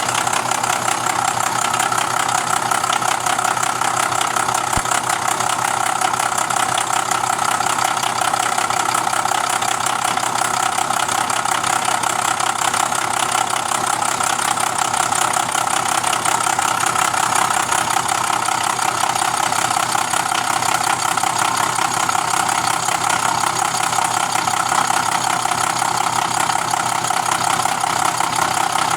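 Bridgeport-style knee mill running steadily with its spindle turning a 4-inch carbide insert cutter: an unchanging mid-pitched hum with a hiss above it.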